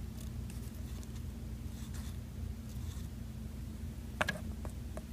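Small plastic toys handled on a wooden tabletop: a few faint ticks and one sharper tap about four seconds in, over a steady low hum.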